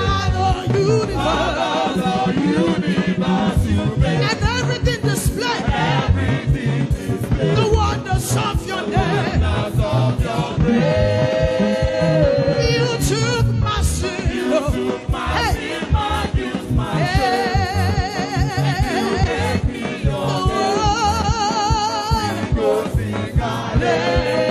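Church choir singing a gospel song with vibrato over a live band with a steady drum beat.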